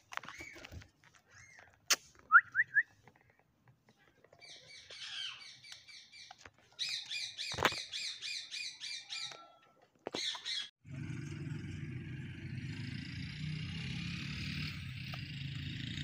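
Rose-ringed parakeets calling: a few short sharp squawks, then a run of quick repeated chattering notes, about five a second, for several seconds. About eleven seconds in, a steady hiss with a low rumble sets in under the birds.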